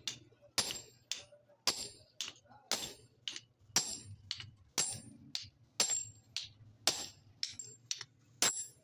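Hammer blows on a red-hot hatchet head on an anvil. A heavy strike comes about once a second, each followed by a lighter one, so the strikes run at about two a second, each with a short metallic ring.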